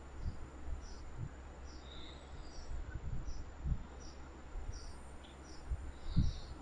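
Insect chirping outdoors in a regular rhythm, short high chirps at roughly one to two a second, over a low rumble with a few soft low thuds.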